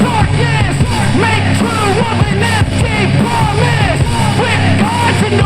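Rock song with sung, shouted vocals and heavy bass, played at half volume through a Tronsmart Mirtune S100 portable Bluetooth speaker and picked up by a microphone outdoors.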